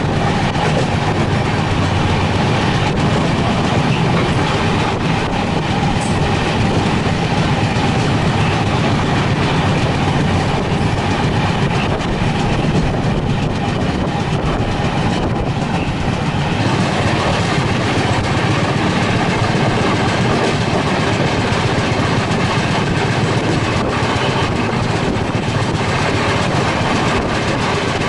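Indian Railways Rajdhani Express passenger train running at speed: a steady rumble and rattle of the coach, with occasional clicks of the wheels over rail joints.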